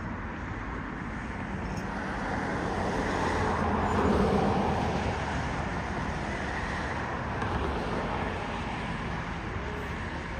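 Steady outdoor road-traffic rumble that swells as a vehicle passes close, about four seconds in, then eases off.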